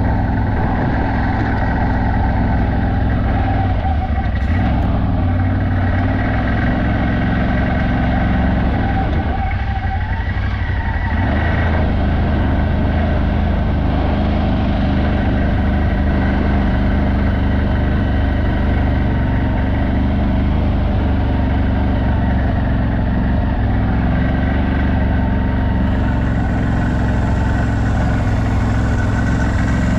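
CF Moto 1000 utility vehicle's V-twin engine running steadily under way, easing off briefly about ten seconds in.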